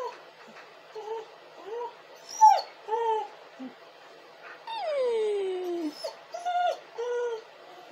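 A dog crying in a string of short, high whimpers, with one long whine falling in pitch about five seconds in, then three more short whimpers.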